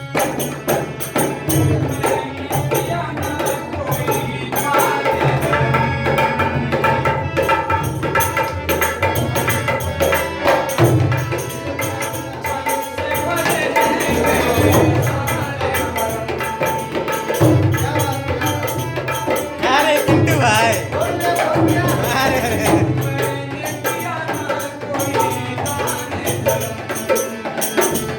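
Live Indian devotional song: tabla-style hand drums and tambourine keep a steady rhythm under a melody, with a voice singing in places.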